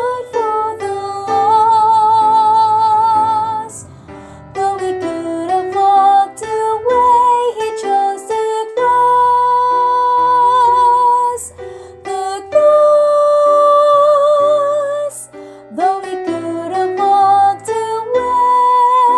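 Music: a female soprano voice singing long held notes with vibrato over piano accompaniment.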